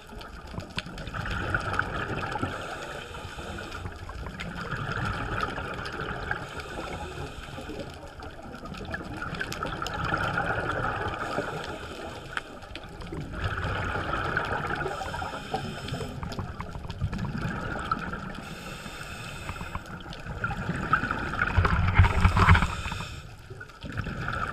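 Scuba regulator breathing and exhaled bubbles, muffled underwater through the camera housing. A rushing, gurgling surge repeats every three to four seconds, with hissy breaths between, and the loudest bubble burst comes near the end.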